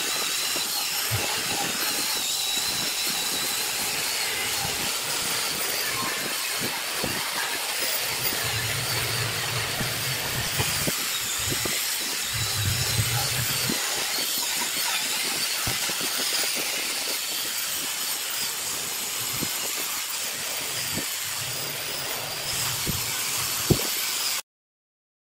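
Handheld angle grinder with an abrasive disc running steadily against the rusty, paint-flaked metal housing of a plate compactor, stripping it down: a continuous high whine over a harsh hiss, wavering in pitch as the disc is pressed in. It cuts off abruptly near the end.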